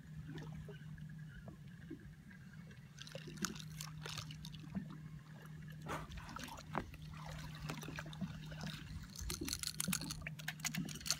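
Water lapping and splashing at the surface in small, irregular splashes, over a low steady hum.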